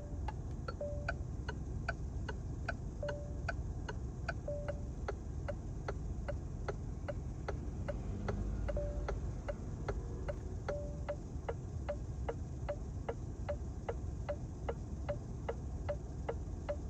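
Car turn-signal indicator ticking steadily, a tick-tock of about four clicks a second, with a short tone note sounding now and then among the clicks, over a low steady rumble.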